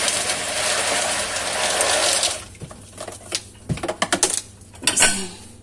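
Coarse Somat dishwasher salt pouring from its pack into the dishwasher's salt reservoir, a steady grainy hiss that stops a little over two seconds in. Then come scattered clicks and taps as the last grains fall and the pack is handled.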